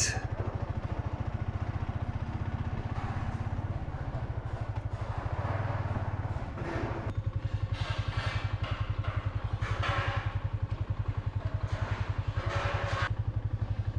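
A slow-moving vehicle's engine running with a steady, fast low pulsing, with street traffic passing by in several brief swells.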